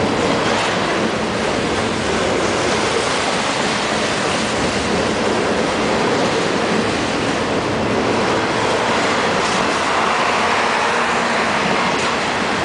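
Double-stack container freight train rolling past: a steady, loud rumble of steel wheels and well cars on the rails.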